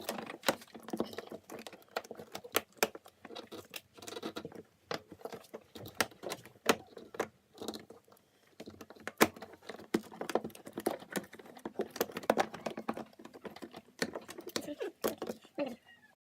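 Irregular clicks, taps and light rattles of hands working on a plastic fan cover inside a fridge and screwing it back in place. The sound cuts off abruptly just before the end.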